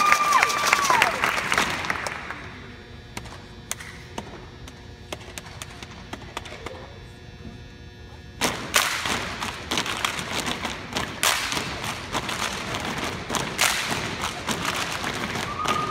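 Crowd cheering dies away over the first couple of seconds. After a quieter stretch with a few scattered taps, a step team breaks into stepping about eight seconds in: a fast, dense run of stomps and hand claps that carries on to the end.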